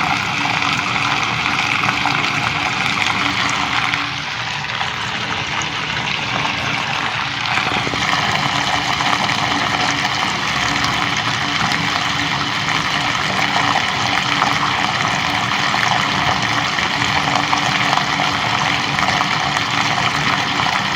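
Water running out of a pipe in a steady rush, slightly softer for a few seconds about four seconds in, then full again.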